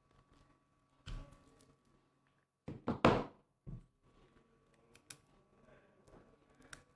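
A few dull thuds and knocks: one about a second in, a louder cluster of two or three near the middle, then one more, with a couple of faint clicks after.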